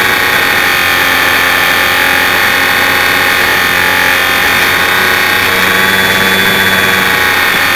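Electric motor and propeller of a HobbyZone Champ RC micro plane running steadily in flight, loud and whining, through the onboard keychain camera's microphone, with rushing air. The pitch wavers slightly around the middle. This is the stock original motor, which the owner believes is probably worn out after more than 125 flights.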